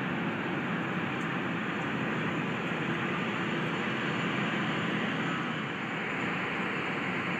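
Steady, unchanging noise of distant jet airliner engines running on the airfield.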